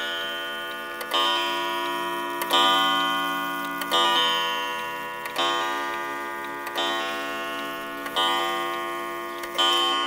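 Antique school-house regulator wall clock striking on its gong: seven strikes, about one every second and a half, each ringing out and fading into the next.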